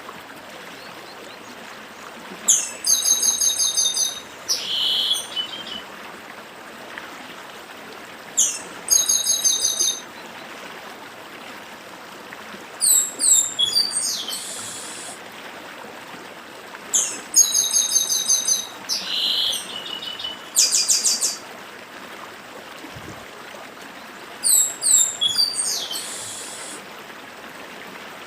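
Chestnut-capped blackbird singing, giving short high-pitched song phrases again and again every few seconds, over the steady rush of a stream.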